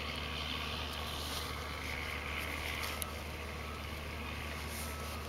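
Steady low rumble with a faint even hiss of outdoor background noise, and a few faint ticks.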